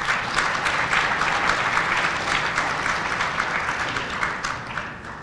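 Audience applauding, a dense stream of claps that dies away near the end.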